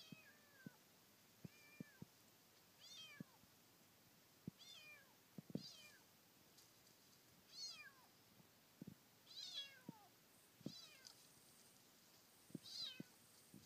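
Kitten meowing over and over, high thin calls that fall in pitch, one every second or two, with scattered short clicks between them.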